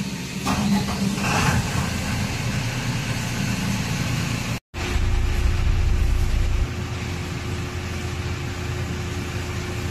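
Sweeper truck's diesel engine running steadily at low revs, heard as a low rumble. The sound cuts out completely for a moment about halfway through, then returns heavier for a couple of seconds before settling back to a steady rumble with a faint hum.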